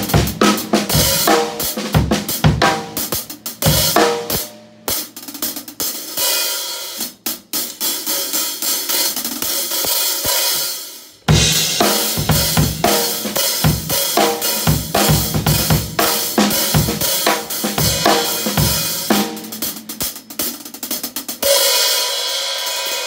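Drum-kit groove played with sticks on Sabian HHX Evolution hi-hats, with snare and bass drum and short fills. There is a loud accent about halfway through, and it ends on a ringing cymbal wash.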